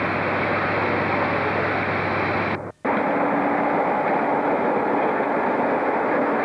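Steady train noise with a low hum, broken by a brief dropout about two and a half seconds in. After it, British Rail Class 47 diesel locomotive 47817 sits idling, its Sulzer twin-bank V12 engine running with a steady tone.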